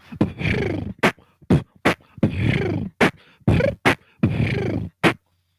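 Solo vocal beatboxing: sharp percussive mouth clicks and snares alternate with held, voiced notes that slide down in pitch. The routine stops about five seconds in.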